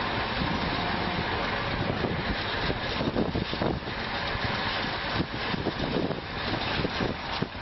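A vehicle engine running steadily, with a rough, continuous noise.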